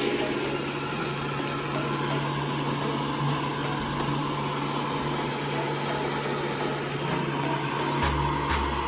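A homemade vacuum cleaner's small electric motor running steadily: a constant whirring hum with rushing air. Near the end, a music track with a steady beat comes in over it.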